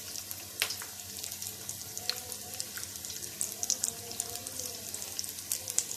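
Breaded potato-cheese nuggets deep-frying in hot oil in a wok: a steady sizzle with scattered small crackles and pops.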